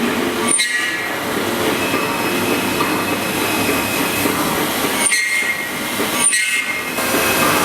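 InfoTEC 3121 PRO CNC milling centre milling: the spindle and cutter run with a steady grinding cutting noise and high squealing tones, dropping away briefly about half a second in and twice near the end.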